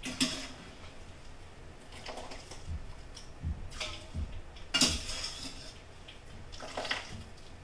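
A metal utensil clattering and clinking against a cooking pot as blanched broccoli is scooped out, in about five separate knocks, the loudest about five seconds in.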